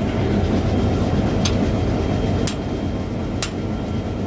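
Diesel-electric locomotive engine idling steadily, with several sharp metallic clicks as the coupler between locomotive and coach is worked by hand.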